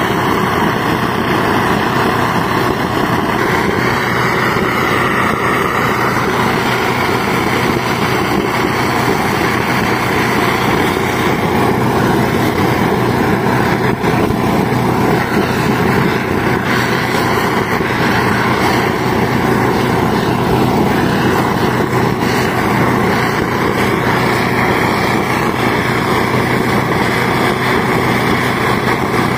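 Small engine on portable rail-welding equipment running steadily at one constant speed, with a steady low hum and a hissing edge.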